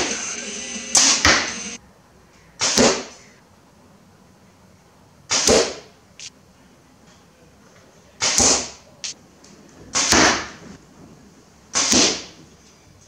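Arrows shot from a compound bow with a release aid, each shot landing with a sharp thwack in the target boss: six shots, a few seconds apart. There is a brief hiss at the start.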